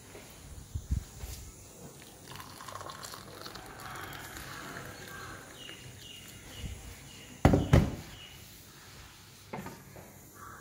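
Just-boiled water poured from a stainless steel electric kettle into a ceramic mug for a few seconds, then a couple of loud knocks about seven and a half seconds in.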